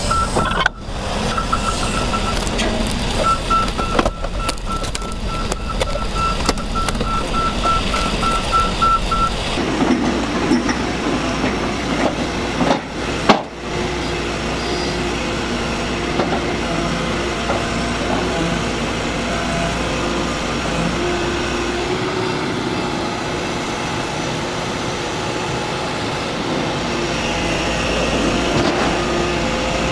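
Crawler excavator diesel engine running while the machine is moved on a lowboy trailer, with a steady warning beep repeating about three times a second. After a cut, a Volvo crawler excavator's engine runs steadily under load as it climbs a ramp onto a trailer, with one sharp thump a few seconds later.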